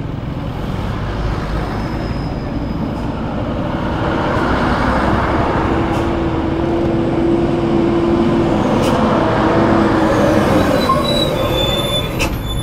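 Heavy truck approaching and passing close by in slow traffic, its engine noise growing from about four seconds in, with a steady whine held for several seconds midway.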